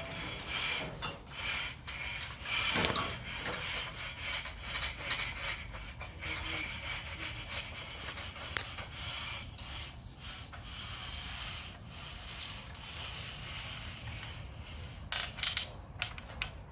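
Hand finishing tool scraping and rubbing across the surface of wet concrete in repeated uneven strokes, as the slab is smoothed.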